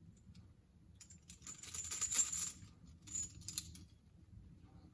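Metal clinking and scraping from climbing hardware. It comes in two bursts: a longer one starting about a second in and lasting over a second, then a shorter one about three seconds in.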